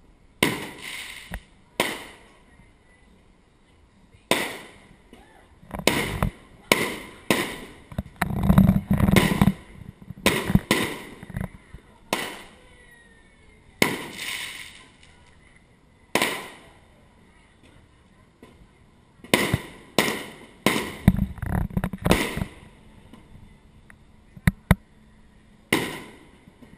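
Aerial firework shells bursting: about twenty sharp bangs at irregular intervals, some in quick clusters of two or three, each trailing off in a short echo, with a few quiet gaps between volleys.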